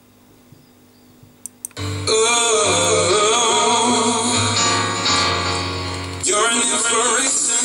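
Near quiet with a couple of short clicks, then a song with singing starts suddenly about two seconds in and carries on as background music.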